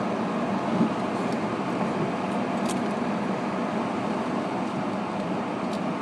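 Steady hum and rush of a car's interior while driving in traffic on a snowy road, with a faint click about midway and another near the end.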